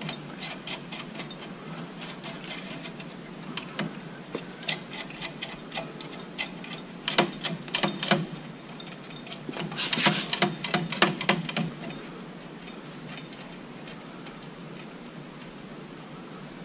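Socket ratchet wrench clicking in bursts as nuts on a U-bolt are snugged down, with the densest run of clicks about ten seconds in and a quieter stretch near the end.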